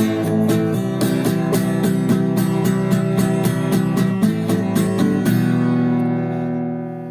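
Guitar music at the end of a song: rhythmic strummed chords, then a final chord struck about five seconds in and left to ring and fade.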